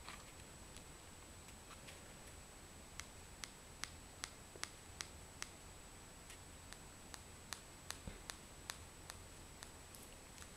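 Faint, sharp clicks of a remote control's buttons being pressed over and over, about two or three a second from about three seconds in, stepping an RGB LED bulb through its brightness levels. A faint steady high whine runs underneath.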